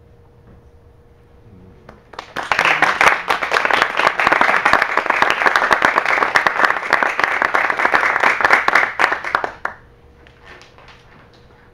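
A small audience applauding: clapping starts about two seconds in, builds quickly, holds steady, and stops fairly suddenly near the ten-second mark, followed by a few last claps.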